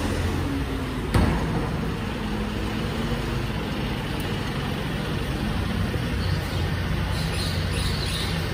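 Rear-loader garbage truck's diesel engine running steadily as the truck moves off, with a single sharp metallic clank about a second in.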